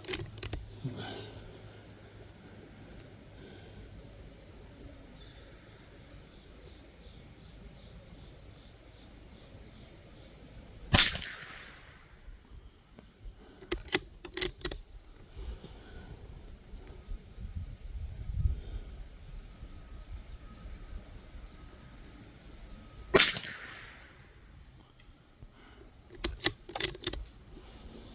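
.22 LR rifle firing two single shots about twelve seconds apart, each a sharp crack with a short echoing tail. Quieter clicks and knocks follow each shot.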